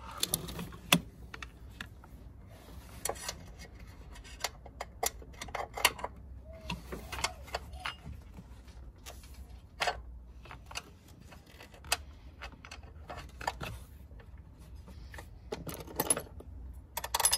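Steel battery hold-down clamp, washer and wing nut handled and fitted onto the clamp stud by hand: irregular light metallic clicks and taps, with a few louder knocks now and then.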